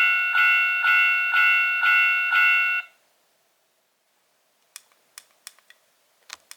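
Japanese railroad crossing warning bell: an electronic ding repeating about twice a second, stopping abruptly about three seconds in. A few small, sharp clicks follow near the end.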